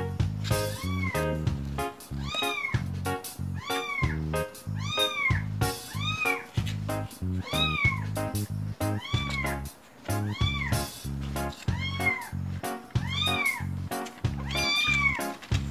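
A kitten meowing over and over, one insistent cry about every 0.7 seconds, each rising then falling in pitch, over background music with a stepping bass line.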